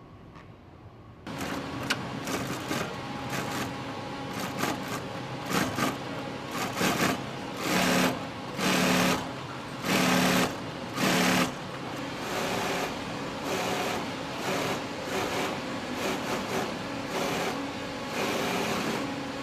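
Industrial sewing machine stitching leather, starting about a second in, running in short bursts with a few louder runs of fast stitching about a second apart near the middle.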